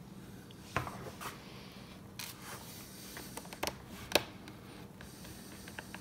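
Small Phillips screwdriver driving screws into a laptop's aluminium bottom case: faint scraping and rubbing, with several sharp little clicks of metal scattered through it.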